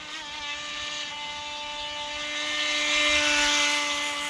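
Small electric RC speedboat's motor and propeller running at speed, a steady high whine. It grows louder as the boat runs in close, peaking about three seconds in, then eases off.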